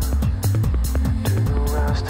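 Electronic background music with a steady beat and deep bass.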